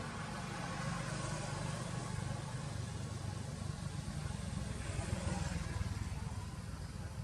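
A steady low engine hum with a noisy hiss over it.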